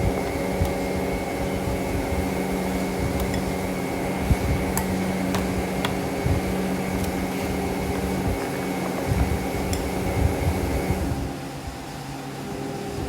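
Steady hum of a small household appliance motor with a faint high whine and a few light ticks, dropping away about eleven seconds in.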